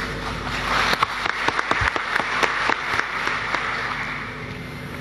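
Audience applauding, a dense patter of many hands clapping that swells about a second in and fades away over the last second or two.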